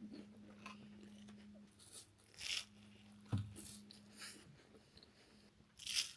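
Close-up eating of a mille-feuille: several short crackly crunches of flaky puff pastry being bitten and chewed, one with a soft thump about three seconds in, over a faint steady hum.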